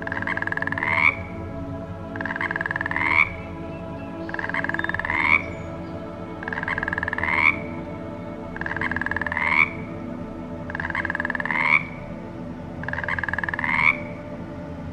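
An animal call repeated seven times, about every two seconds; each call lasts about a second and ends in a short, loud rise in pitch. A steady low hum runs underneath.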